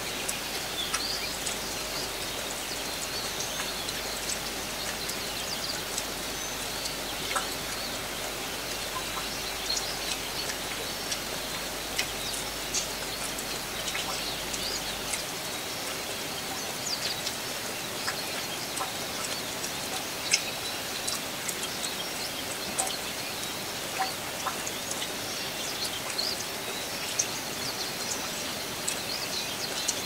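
Steady light rain, with scattered drops ticking sharply, while small birds chirp here and there.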